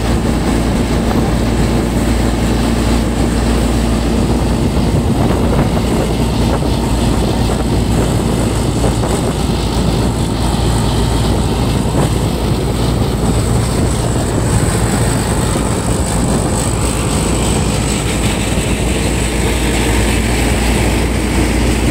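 Tractor-driven groundnut thresher running steadily while threshing groundnut. The Mahindra tractor's diesel engine and the thresher's spinning drum and blower make one continuous, loud mechanical noise.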